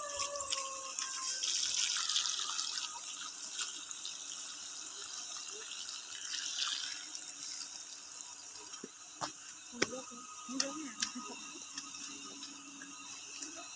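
Water trickling steadily into a flooded rice paddy, with a few sharp clicks about nine to eleven seconds in.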